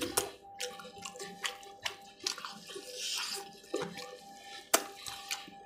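Close-miked wet chewing and lip-smacking of a person eating spicy fried chicken liver and roast chicken with his hand: irregular sharp wet clicks and smacks.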